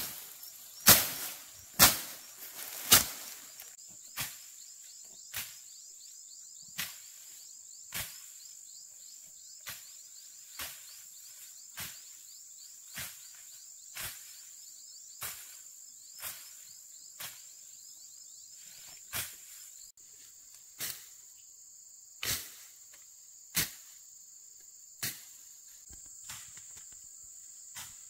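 Repeated sharp blows at a steady pace of about one a second. The first few are the loudest and the rest fainter, over a steady high-pitched insect drone.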